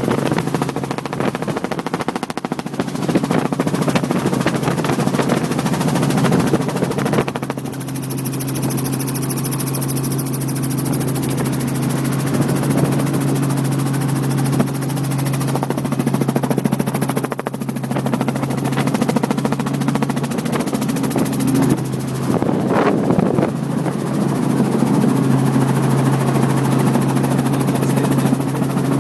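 Light helicopter in flight, heard inside the cabin: the engine and rotor give a steady drone under a constant rush of air.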